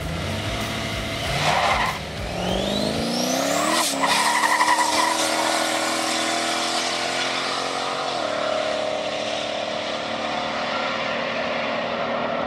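Turbocharged LS2 V8 accelerating hard, its pitch climbing steadily and dipping at two upshifts, about 4 s and about 8 s in.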